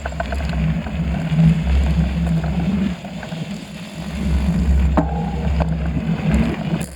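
Wind buffeting the microphone of a moving bicycle, a heavy rumble that swells and eases, with scattered clicks and rattles from the bike.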